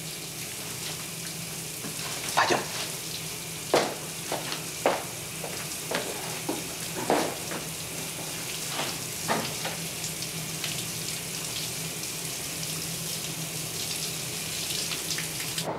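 Showers running in a tiled washroom: a steady hiss of spraying water, with a few scattered sharp knocks or splashes over the first ten seconds.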